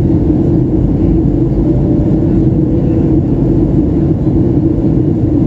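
Cabin noise of a Boeing 737 airliner in flight: the jet engines and rushing air make a steady, unbroken drone with a low hum running through it.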